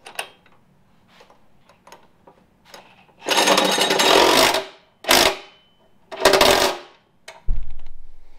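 Cordless impact driver hammering bolts down in three bursts: a long one of over a second, a short one, then one of about half a second. A dull thump follows near the end.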